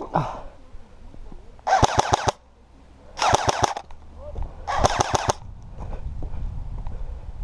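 Three short full-auto bursts from an airsoft rifle, each about half a second of rapid shots, about a second and a half apart.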